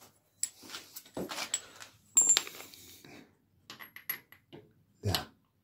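Metal hand tools clinking and knocking against each other and against an ATV's engine case as a wrench is put to a fitting. There is a bright ringing metal clink about two seconds in and a quick run of small clicks near four seconds.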